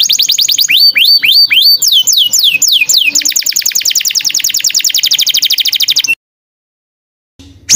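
Recorded song of a small songbird: a quick series of sharply down-slurred whistled notes, then a fast, even, high trill lasting about three seconds. The song cuts off abruptly into about a second of silence and starts again near the end.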